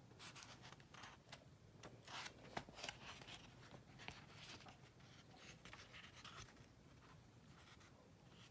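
Faint papery rustling as the pages of a paperback book are turned and riffled by hand, with a few sharper page flicks about two to three seconds in.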